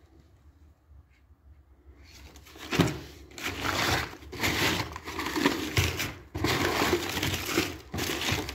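Crunching and rustling of broken plaster rubble being handled, in a run of uneven bursts starting about two seconds in.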